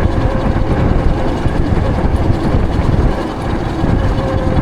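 Riding noise on an e-bike: a dense low rumble of wind on the microphone and road, with a steady thin whine that fades in the middle and comes back near the end.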